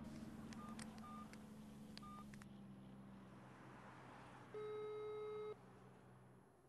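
Mobile phone call being placed: three short keypad beeps with light clicks, then a single one-second ringback tone as the call rings through.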